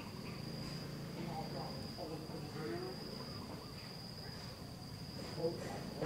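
A cricket trilling steadily on one unbroken high note, over a low background hum.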